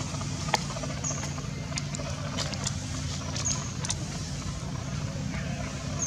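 A steady low motor hum, like an idling engine, runs under scattered light clicks and a few brief high chirps.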